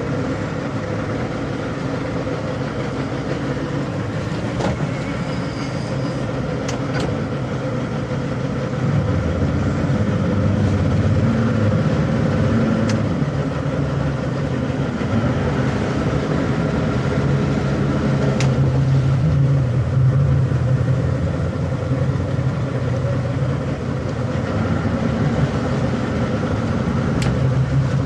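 Outboard motors on a center-console boat running at low maneuvering speed. They get louder with more throttle about nine seconds in. A few faint clicks are heard over the hum.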